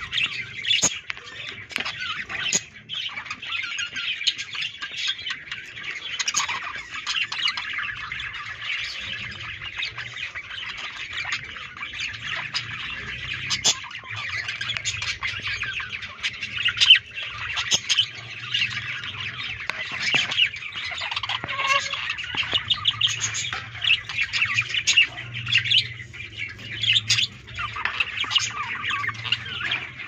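Budgerigars chattering: a constant stream of warbles, chirps and sharp squawks with no pause.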